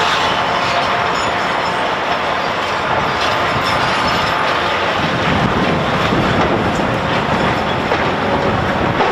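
Heavy machinery running continuously, with metallic clattering and faint high squealing tones over a dense, steady noise.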